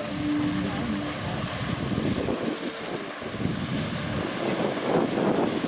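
Gusty wind buffeting the camcorder microphone. A horn's steady note dies away in the first second.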